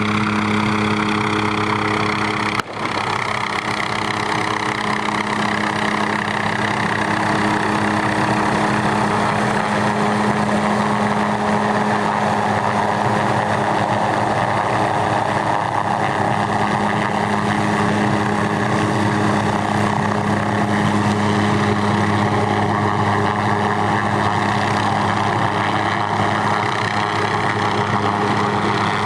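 MD 500 helicopter hovering low and close, its turbine whining over the steady hum of the rotor, with a brief dropout about three seconds in.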